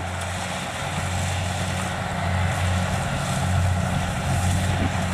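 Kubota DC70 rice combine harvester running steadily as it cuts and threshes rice: a constant low diesel drone with machinery noise over it.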